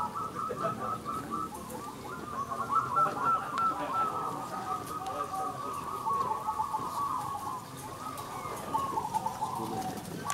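Many caged zebra doves (perkutut) cooing at once: overlapping runs of quick, warbling coo notes that blend into a continuous chorus.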